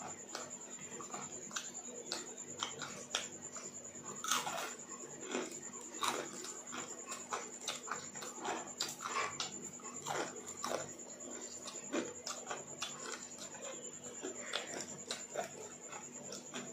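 A person eating rice and kadhi by hand close to the microphone: wet chewing and lip smacks in an irregular run of short clicks, over a steady faint high-pitched whine.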